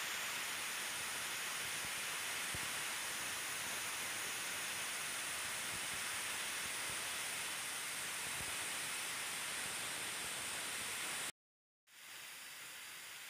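Steady hiss like static, cutting out to complete silence for about half a second near the end, then returning a little quieter.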